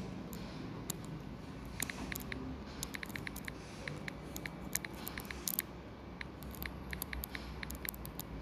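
Typing on a phone's touchscreen keyboard: a quick, irregular run of light clicking taps, starting about two seconds in and continuing to the end.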